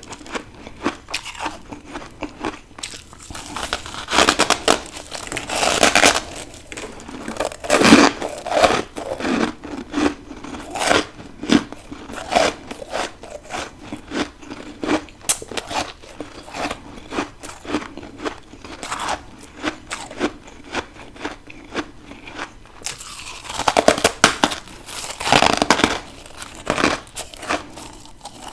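Crunching and crackling of humidifier-grown deep-freezer frost being bitten and chewed close to the microphone, in irregular bursts with a few louder crunches.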